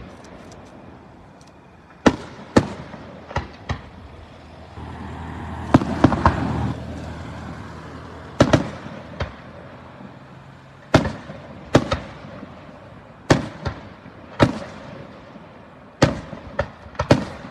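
Fireworks display: aerial shells bursting in sharp, irregular bangs, often in quick pairs or clusters about a second apart. A denser, rumbling run of reports comes a third of the way through.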